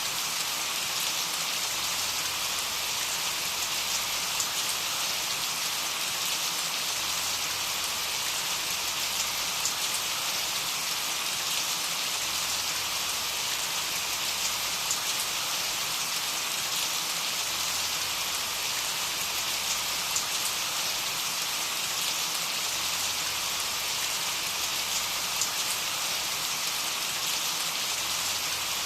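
Steady rain falling: an even, unbroken hiss with faint individual drop ticks scattered through it.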